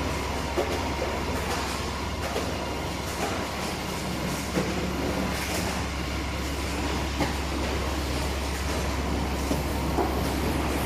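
Veneer core builder machine running: a steady low hum and rattle, with a short sharp clack every two or three seconds.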